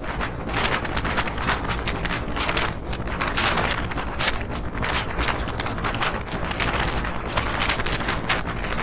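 Passenger express train running at speed, heard from on board: a steady rushing noise with rapid, uneven clatter of the wheels on the track.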